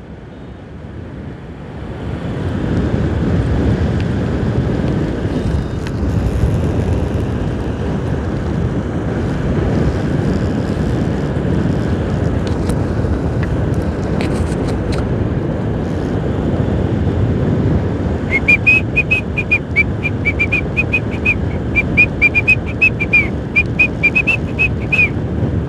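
Wind rush and road noise of a motorcycle ride, with the engine running underneath, growing louder about two seconds in. In the last seven seconds a rapid run of short, high, even-pitched beeps comes in, about five a second.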